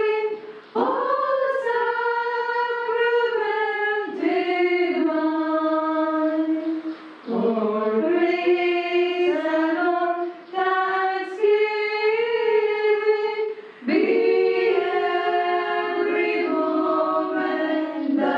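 Women's voices singing a hymn together, unaccompanied, in long held phrases with short breaks for breath between them.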